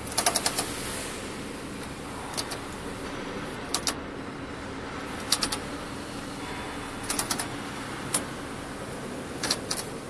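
Braiding machine bobbin carriers and tension arms giving irregular clusters of sharp metallic clicks, several times over, against a steady low hum.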